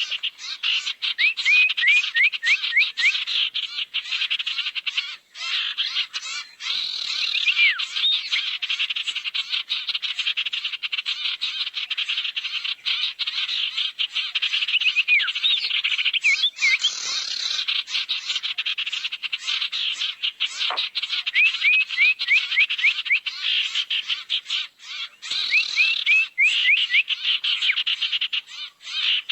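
Bird-lure recording of burung sirtu calls: a continuous fast, dry rattling trill, broken several times by short runs of four or five quick upward-hooked chirps.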